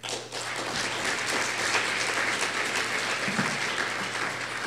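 Audience applauding, starting suddenly and easing off a little near the end.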